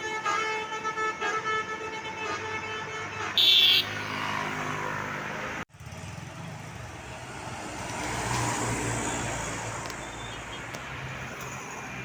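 Multi-tone 'telolet' (basuri) bus horn playing a pulsing tune, with a brief loud high-pitched burst a little before four seconds in. After a sudden cut just before six seconds, vehicle engine and road noise rises and eases off.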